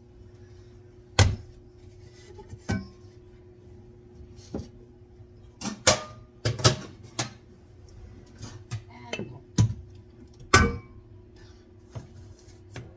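Cookware clattering: a wok set down on a glass-ceramic cooktop and pans knocking together, about ten sharp knocks and clanks, a few leaving a short metallic ring. A steady low hum runs underneath.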